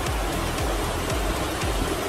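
Background music with a steady deep beat, about two beats a second, over a dense rushing hiss.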